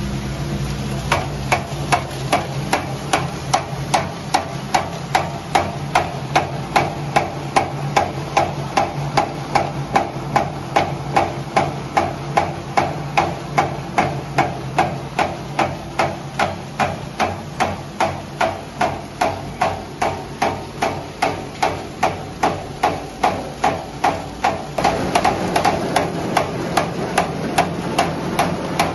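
Crinkle paper shredder machine running: a steady motor hum under a regular mechanical knocking, about two and a half knocks a second. Near the end the running noise grows louder while the knocking carries on.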